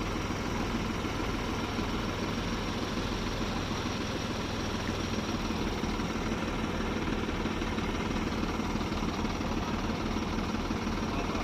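Diesel engine running steadily at an even idle.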